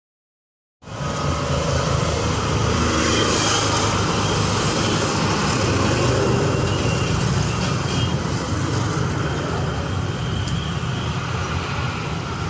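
Steady road-traffic noise from a busy city street, with passing cars and other vehicles. It starts about a second in, after a short silence.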